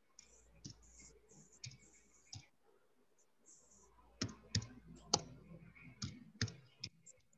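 Computer keyboard being typed on: faint separate key clicks, a few scattered at first, then a quicker run of them a little past halfway.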